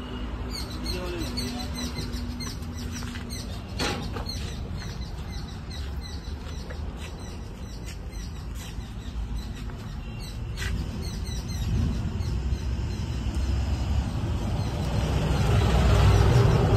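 Birds chirping over a steady low rumble that swells near the end, with two sharp knocks, the first about four seconds in and the second about eleven seconds in.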